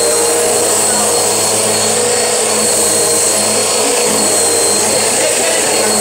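Bissell upright vacuum cleaner running steadily while it is pushed over a pile rug: a constant motor hum with a thin high whine over it.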